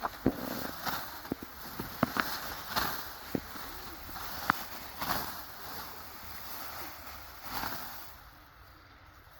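Irregular rustling swishes, roughly every two seconds, with sharp snapping clicks in between: rice stalks being cut and gathered by hand.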